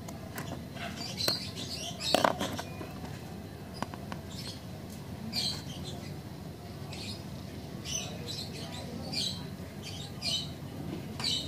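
Scattered light scratches and clicks from a small plastic turntable cartridge being handled and turned with a metal tool, the loudest cluster about two seconds in, over a steady low background hum.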